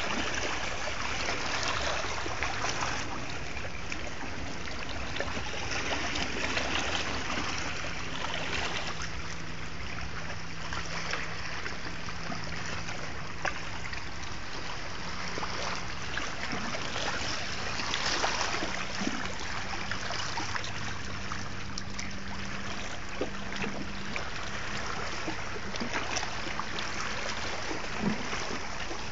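Sea waves washing in and out over a beach of rounded pebbles, swelling and easing every few seconds, with a faint steady low hum underneath.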